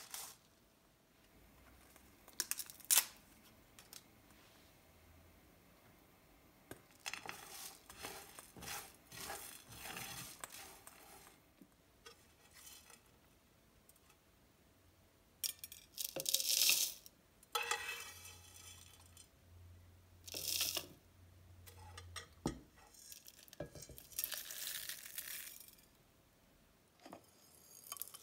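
Dry whole spices (coriander and cumin seeds, bay leaf, cinnamon) scraping and rattling in irregular bursts: first stirred with a wooden spoon in a nonstick pan as they dry-roast, then poured into a plastic blender cup, with light clinks of a glass plate.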